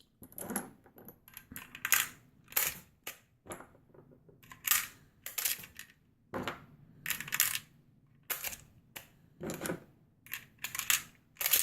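Cartridges being loaded into a magazine with a Maglula loader, each round clicking as it is pushed in. A long series of sharp clicks at an uneven pace, less than two a second.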